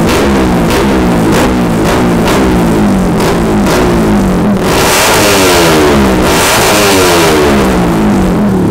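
Single-cylinder engine of a Yamaha Sniper 150, bored out to 186cc, revved over and over, its pitch rising and falling in quick sweeps, with music carrying a steady beat underneath.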